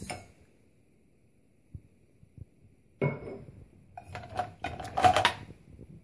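Drinking glasses and crockery clinking and rattling against each other and the dishwasher's wire rack as they are handled. The clinking starts about three seconds in and is loudest about five seconds in.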